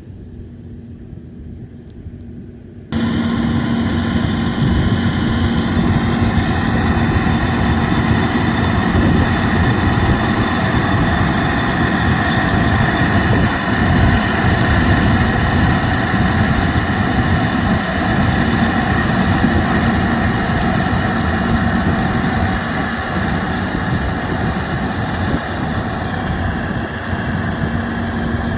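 Kukje KC100 six-row combine harvester running steadily with a held whine. It is faint for the first few seconds, then becomes loud all at once about three seconds in.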